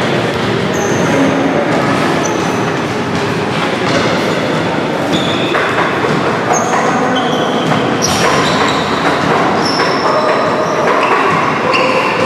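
Basketball sneakers squeaking on a hardwood gym floor: many short, high squeals, scattered throughout, over a steady din in the large hall.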